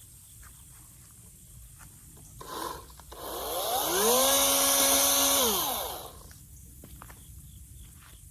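Toro electric chainsaw run in one short burst: the motor whine rises quickly, holds steady for about a second and a half, then falls away as the trigger is released. A short knock comes a moment before it starts.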